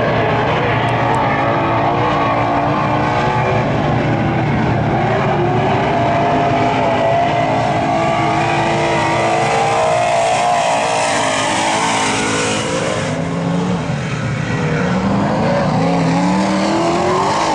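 Dirt-track race car engine running hard at high revs around the oval, its pitch holding fairly steady, then rising several times in a row near the end as the car accelerates out of the turns.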